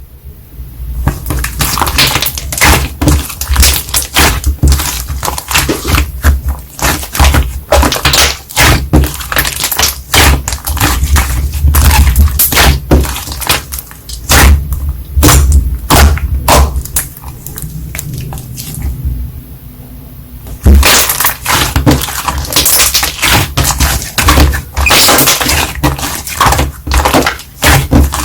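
Slime being squeezed and pressed by hand, making a dense run of crackling pops and clicks, with a brief lull about two-thirds of the way through.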